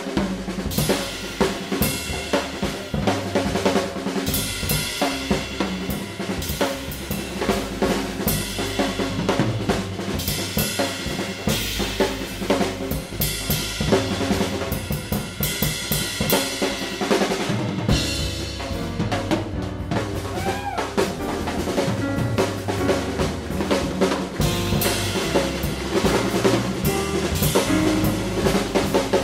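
Background music driven by a drum kit, with a steady beat of drum strikes over sustained pitched instruments.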